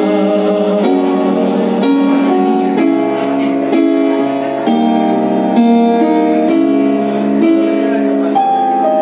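Piano chords played on a Roland Fantom X8 keyboard, a slow progression that changes about once a second.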